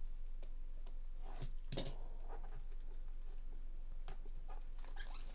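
Cardboard trading-card hobby box handled and opened by gloved hands: scattered clicks, scrapes and rustles, the loudest just under two seconds in, over a steady low hum.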